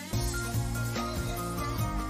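Background music; a deep bass and beat come in just after the start, under held melody notes.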